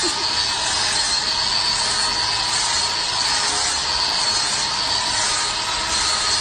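Cordless angle grinder with a sanding disc running steadily against wood, a high machine whine over a continuous rushing grind.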